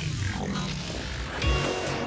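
Intro music with a heavy low beat that comes in about one and a half seconds in.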